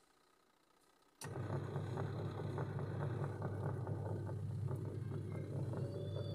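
Twin-tub washing machine's wash motor switching on about a second in and then running with a steady hum, driving the wash tub. It runs smoothly with no abnormal noise.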